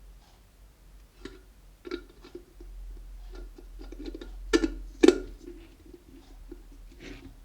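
Clicks, knocks and light rattling from the parts of an electric kettle being handled and fitted back together. The two sharpest knocks come about halfway through, half a second apart.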